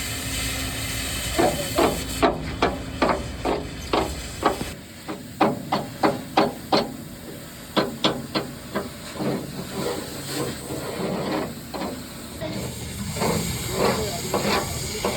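A run of sharp knocks and strikes, two to three a second and uneven, over a low machine rumble that stops about five seconds in.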